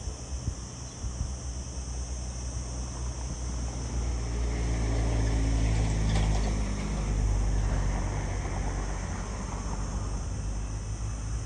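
Twin-engine jet airliner on final approach: its engine rumble grows louder over a few seconds and then eases, with a whine that slides down in pitch as it passes.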